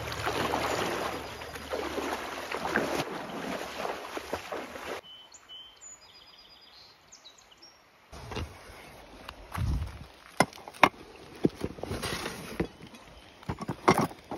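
Water splashing and swishing as a person wades through a shallow river, for about five seconds. Then it goes quiet apart from a few faint bird chirps, and from about eight seconds in there are scattered sharp clicks and dull knocks.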